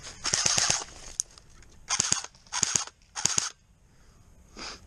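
Battery-powered airsoft rifle firing short bursts of rapid shots: four loud bursts over about three seconds, then a fainter one near the end.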